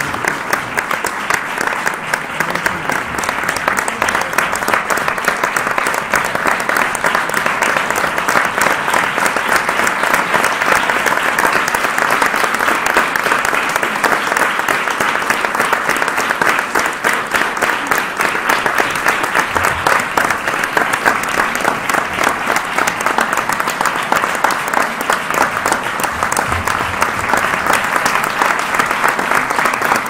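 Audience applause: many hands clapping in a dense, steady patter that holds at an even level throughout.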